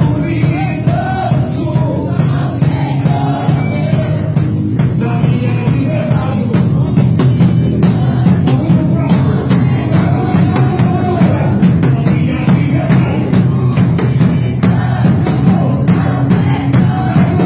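A Brazilian worship band playing a praise song, with drum kit and singing voices over steady accompaniment.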